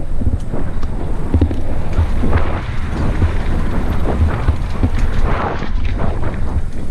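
Mountain bike riding down a loose dirt trail: wind noise on the camera microphone over the tyres on loose soil and frequent knocks and rattles from the bike over bumps.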